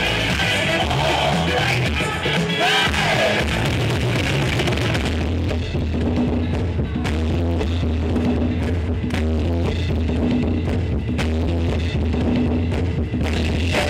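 Loud music over a sound system: a drum-heavy track. About five seconds in it settles into a heavy, steady bass line with regular drum hits.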